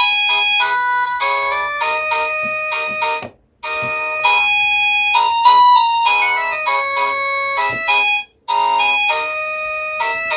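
Cacazi HYA10 wireless doorbell chime playing its electronic melody ringtones, note by note. The tune breaks off into a brief silence about a third of the way in and again near the end, each time followed by a new melody.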